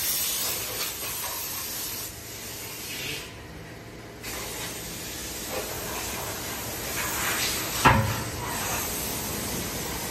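Compressed air hissing from a car-wash air hose as it blows water off the car's rear bumper. The hiss dies away about two seconds in and starts again about four seconds in. A single sharp thump comes near the end.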